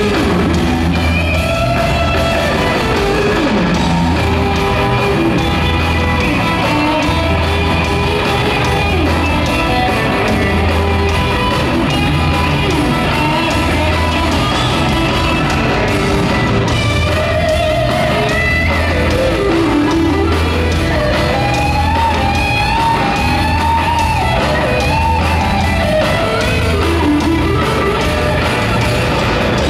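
Live rock band playing an instrumental stretch, with a gold-top electric guitar playing lead lines full of bent notes over bass and drums, loud and steady through the arena PA.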